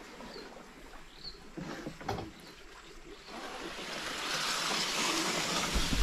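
Wooden canoe moving along a riverbank into overhanging bushes: quiet water noise with a light knock about two seconds in, then a growing rustle of leaves brushing past from about halfway, and a thump at the very end.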